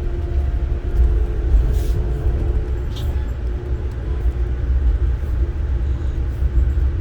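Interior rumble of an Amtrak passenger car rolling along the track, a steady low roar with a faint steady hum above it and a couple of light ticks.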